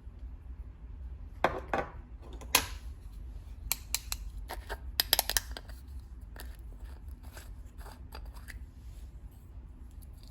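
Slime being worked and mixed with makeup: a run of sharp clicks, snaps and crackles, densest and loudest in the first half and thinning out later.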